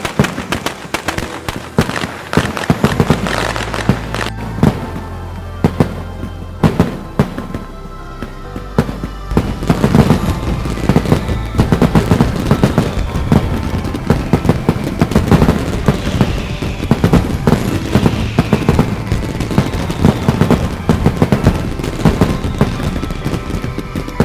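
Fireworks going off in a string of sharp bangs and crackles, growing denser and louder about ten seconds in, with music playing underneath.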